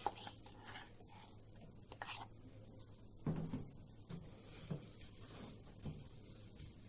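Faint scraping and a few soft knocks of a utensil against a bowl as cooked peanut burfi mixture is scraped out onto a plate, the loudest knock about three seconds in.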